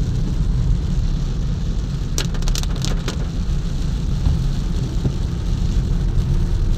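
Rain drumming on a car's windshield and roof, heard from inside the moving car over the steady rumble of engine and tyres on a wet road. A quick run of sharp clicks comes about two to three seconds in.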